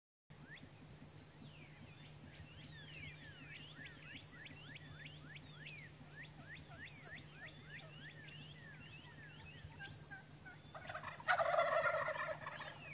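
A Rio Grande wild turkey gobbler gobbles loudly from the roost about eleven seconds in, over a steady chorus of quick downward-sliding bird calls.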